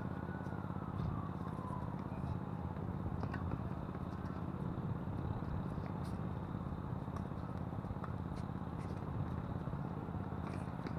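Strong wind buffeting the camera microphone, a steady low rumble, with the sharp pops of a tennis ball being struck by racquets every few seconds during a doubles rally.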